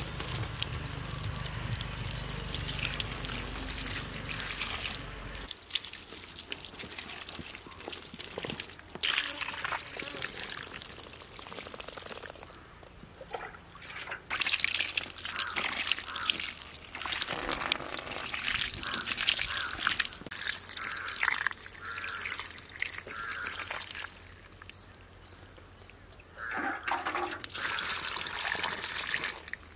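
Water poured from a steel mug over a heap of cut seer fish pieces, splashing and trickling as the fish is washed by hand. It comes in several pours with short quiet gaps between.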